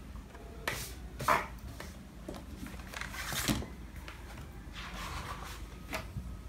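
Plastic snack wrapper crinkling, then notebooks and a folder being picked up and handled, in several short rustling bursts.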